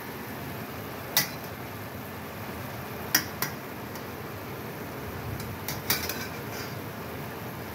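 Metal spatula clinking against the side of a metal skillet of cooking ham and vegetables: several sharp clinks, two close together about three seconds in and a cluster near six seconds, over a steady low hiss.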